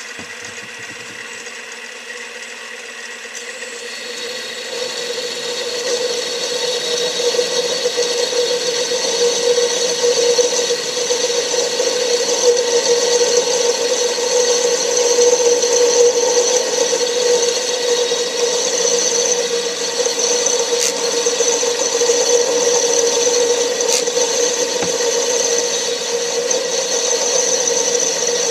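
Metal lathe running while a cutoff (parting) tool feeds into the spinning workpiece to part it off. It is a steady whine that gets louder about four seconds in as the tool bites into the cut.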